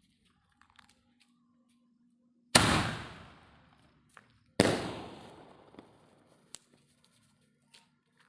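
Two firework bangs about two seconds apart, each sudden and loud with a long echoing tail that fades over a second or so.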